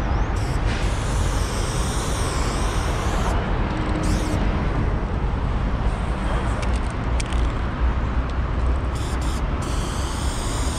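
Aerosol spray paint can hissing in several bursts as black paint goes onto a rough plaster wall, over a steady low rumble of city traffic.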